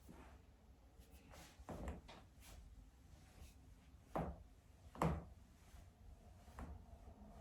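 A person cracking their own joints: a few short, sharp pops, about two, four and five seconds in, the last the loudest.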